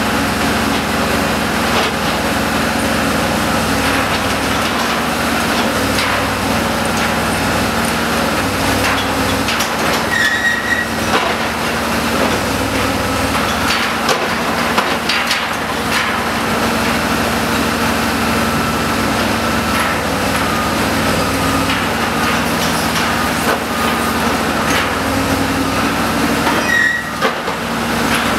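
Menck M154 cable-operated crane working a clamshell grab: its engine runs with a steady drone throughout, with a few knocks and crashes of rubble mixed in.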